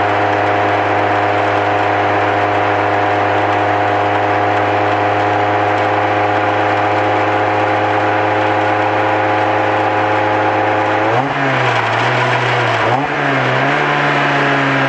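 Lotus Elise S2 engine heard from onboard the car, pulling at a steady, slowly climbing pitch under a hiss of wind and road noise. About eleven seconds in, the note drops and wavers through a couple of quick changes in engine speed, then settles at a lower steady pitch.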